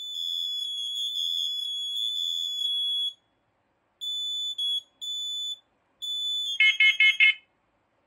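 Hardwired smoke and CO alarms on a test board sounding their high-pitched piezo horns. The tone holds steady for about three seconds, then comes in three shorter stretches, then gives way to a louder burst of rapid beeps at a lower pitch about seven seconds in before cutting off as the test ends.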